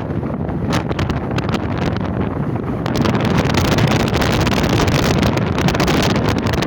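Wind buffeting the microphone: a loud, steady rush of noise that grows louder and harsher about three seconds in.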